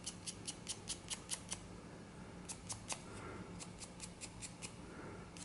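Small flap of 600-grit wet sandpaper rubbed in quick short strokes on a vulcanite (hard rubber) pipe stem, a faint dry scratching of several strokes a second, in two runs with a short pause between. It is sanding the oxidation off the stem.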